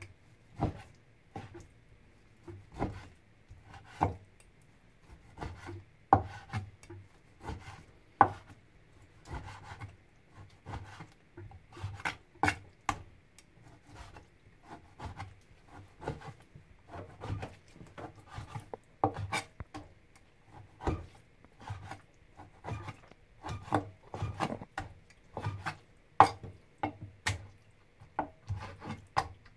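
Chinese cleaver slicing raw chicken breast on a plastic cutting board: the blade knocks on the board irregularly, about once or twice a second.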